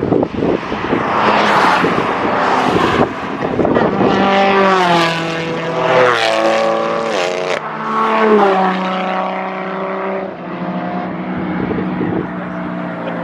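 Holden Commodore VE SS ute's 6.0-litre V8 driven hard on a race track. A rushing noise comes first, then an engine note that climbs and drops in pitch several times before settling lower near the end.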